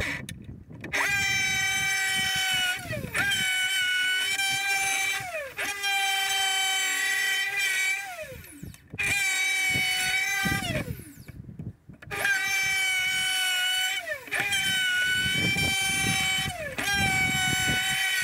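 Electric router cutting a ring of oak on a circle-cutting jig, switched on in about seven short runs of roughly two seconds each. Each run is a steady high whine that ends in a falling whine as the motor spins down.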